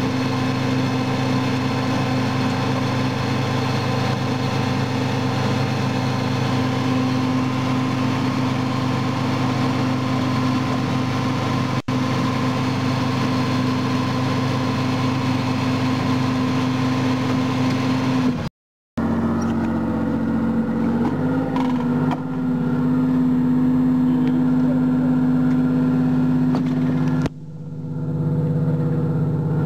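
Armoured personnel carrier's engine running with a steady drone, heard from inside the troop compartment. The sound cuts out briefly about two thirds of the way in, and the engine note shifts slightly a few seconds later.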